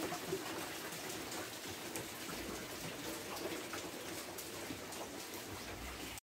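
Steady rain falling, with scattered raindrop taps. The sound cuts out for a split second near the end.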